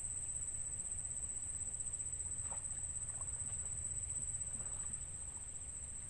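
Insects droning in one steady high-pitched note, over a constant low rumble, with a few faint short chirps about two and a half seconds in.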